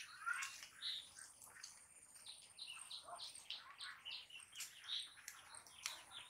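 Small birds chirping, many short calls following one another.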